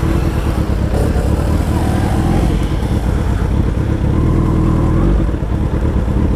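Suzuki Hayabusa's inline-four engine running at low, fairly steady revs through straight-through exhaust pipes with no mufflers, a loud open-pipe note.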